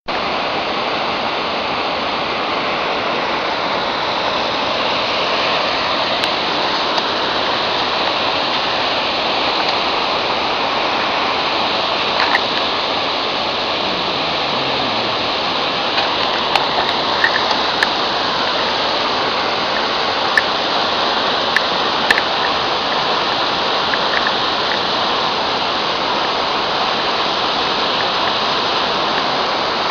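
Waterfall and stream water rushing steadily, with a few faint clicks in the second half.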